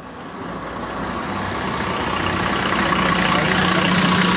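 A steady low engine drone under a wash of noise, fading in and growing louder over the first three seconds.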